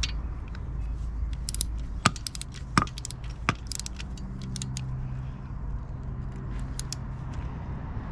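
Click-type torque wrench ratcheting with small metallic ticks as clutch bolts are tightened to 16 Nm, with three sharper clicks about two, three and three and a half seconds in.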